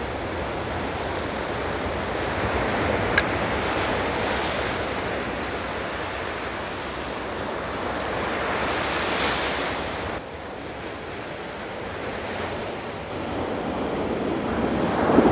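Ocean surf washing on a beach with wind, swelling and easing in slow surges, and quieter for a while about ten seconds in. A single sharp click cuts through about three seconds in.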